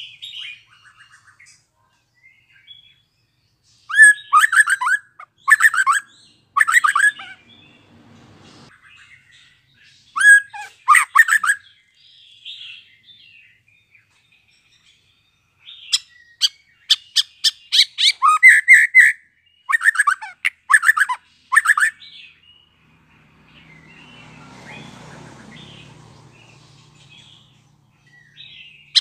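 Young male white-rumped shama (murai batu), just out of its spotted juvenile plumage, singing loud bouts of sharp, rapid, gliding whistles and chips, in three bursts with pauses between them. A faint low rumble swells and fades near the end.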